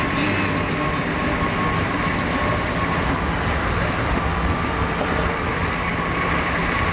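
Car driving at highway speed: loud, steady road rumble with wind buffeting the camera's built-in microphone.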